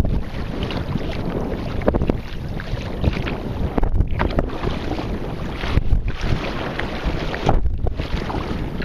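Wind buffeting the microphone in uneven gusts, over water splashing and lapping on choppy water around a sailing sea kayak.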